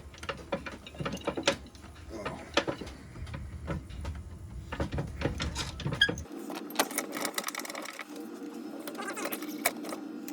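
Wood lathe running while a Forstner bit bores into a very wet bowl blank, with a mechanical clicking and rattling. About six seconds in the sound changes abruptly to a steadier hum with ticks.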